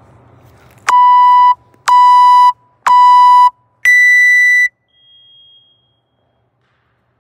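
Workout timer countdown: three short medium-pitched beeps one second apart, then a higher, longer beep that marks the start of the timed workout.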